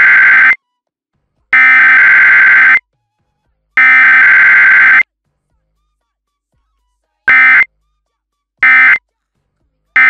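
Emergency Alert System SAME data bursts: a harsh, warbling two-tone digital screech, sent three times as long bursts about a second and a quarter each, then after a silent gap three short bursts, the end-of-message code.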